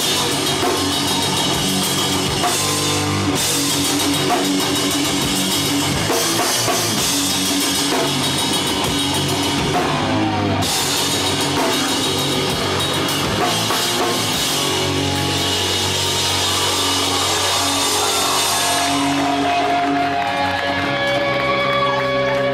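Hardcore punk band playing live through a festival PA, caught on a Hi-8 camcorder's microphone: distorted electric guitars, bass and drums with heavy cymbal wash. Near the end the cymbals stop and held guitar notes ring on as the song winds down.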